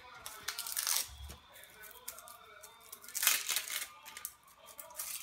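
Dry onion skin being peeled off by hand, papery tearing and crackling in two main bouts, about half a second in and again about three seconds in.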